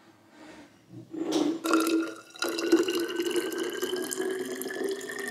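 Water poured from a glass jug of lemon water into a narrow-necked glass bottle, starting about a second in. The pouring tone rises steadily in pitch as the bottle fills.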